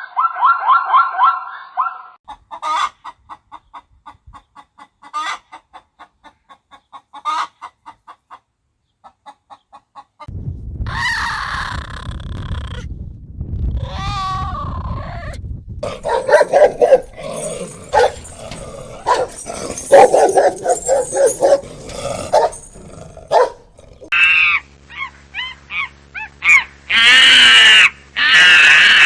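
A series of different farm animal calls, one short clip after another, with the sound changing abruptly several times.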